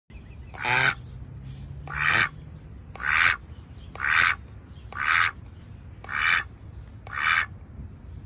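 A duck quacking seven times, about one quack a second, each short and loud, over a steady low background noise.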